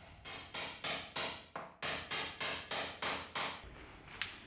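About a dozen quick hammer blows in a steady rhythm, roughly four a second, stopping a little after three seconds in.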